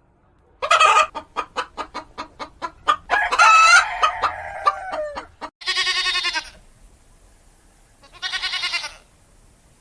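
Chickens: a loud squawk, then rapid clucking at about five a second, then a rooster crowing in one long call that falls at the end. Two shorter quavering calls follow, about half a second and two and a half seconds later.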